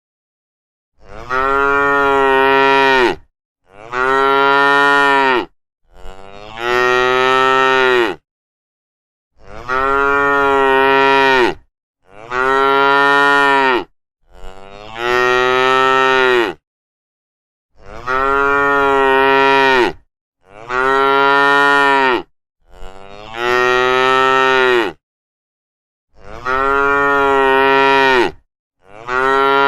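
Cows mooing: a run of about eleven long, loud moos, each lasting around two seconds, separated by short silent gaps.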